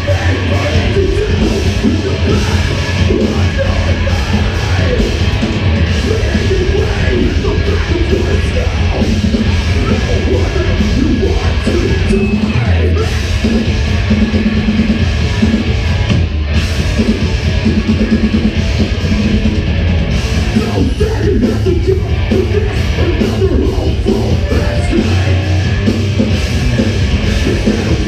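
Rock band playing live, loud and unbroken, with sung vocals over the band.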